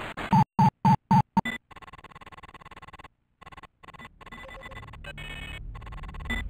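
Synthesized electronic sound effects from a late-1990s Flash intro. Five short, loud beeps come in quick succession in the first second and a half. A quieter electronic hum with faint steady tones follows, cuts out briefly about three seconds in, then builds toward the end.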